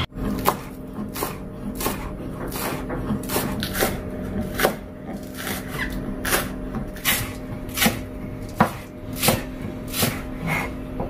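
Chef's knife chopping spring onions on a plastic cutting board: an even run of sharp knocks, about two a second.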